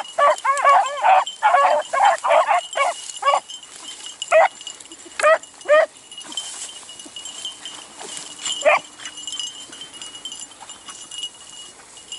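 Pack of beagles baying on a rabbit hunt: a rapid, overlapping run of bays for the first three seconds or so, then single bays now and then, thinning out.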